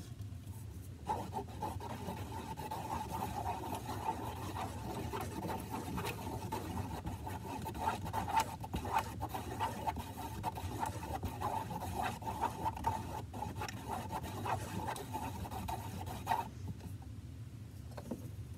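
A wooden craft stick stirring a mix of white glue, baking soda and water in a plastic tub, scraping and rubbing against the tub's bottom and sides with many small clicks. The stirring starts about a second in and stops about two seconds before the end.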